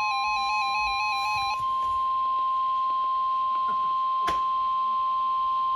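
NOAA Weather Radio's 1050 Hz warning alarm tone, one steady, single-pitched electronic tone, announcing a tornado warning. A second, rapidly warbling electronic alert beep sounds over it until about a second and a half in, and a sharp click comes about four seconds in.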